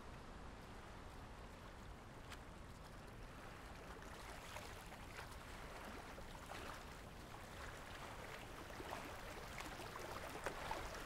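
Faint water lapping against a small boat on calm sea, with soft drips and little splashes that grow more frequent after about four seconds.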